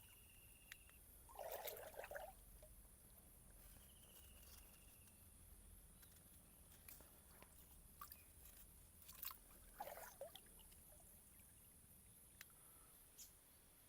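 Near silence: a few faint rustles and clicks, the clearest about two seconds in and again about ten seconds in, over a steady high hiss.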